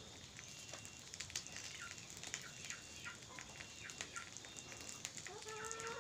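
A small knife scraping and paring the skin off root tubers, a run of short scrapes and clicks, with small birds chirping and a chicken clucking near the end.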